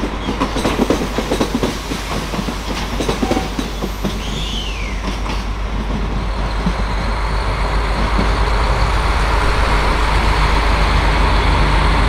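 Container wagons of a long freight train rolling past, their wheels clacking over the rail joints. A short falling squeal about four seconds in, then the clacking gives way to a steady hum that slowly grows louder.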